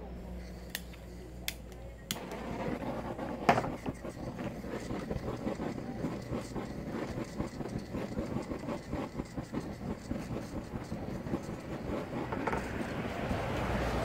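Handheld butane gas torch: a few sharp clicks in the first two seconds, then the flame catches and burns with a steady, flickering rush as it is played along a PVC pipe.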